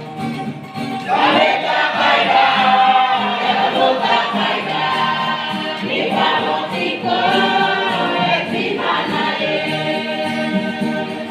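A youth choir singing a gospel hymn in the Mee language, several voices together in sustained phrases.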